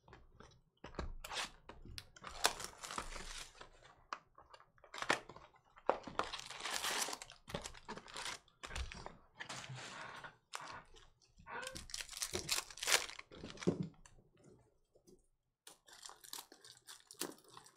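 Hands tearing open a trading-card box and its wrapped card packs: irregular bursts of ripping and crinkling wrapper, with cards handled and flicked through near the end.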